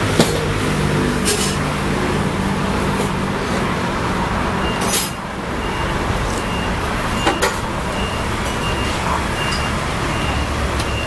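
Road traffic, with a heavy vehicle's engine running and a short hiss of air about five seconds in. After that a faint high beep repeats roughly once a second, and a few light clicks sound.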